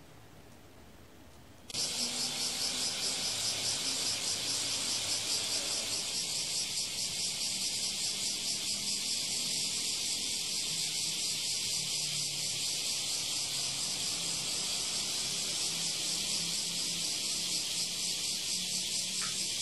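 Cicadas singing in a dense, steady, finely pulsing chorus that cuts in suddenly a little under two seconds in.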